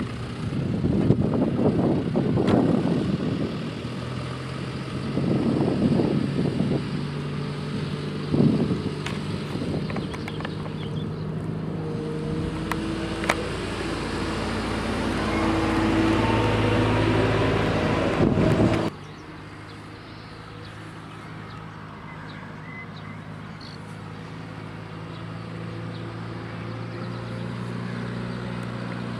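Manitou MLT 840 telehandler's diesel engine running as it drives, with two loud rumbling surges in the first seven seconds and the engine note rising and falling. A little after halfway the sound cuts to a quieter, steady engine drone.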